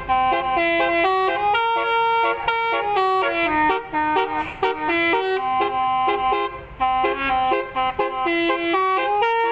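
Telolet basuri musical air horn on a bus playing a tune: a quick, unbroken run of loud horn notes that change pitch several times a second.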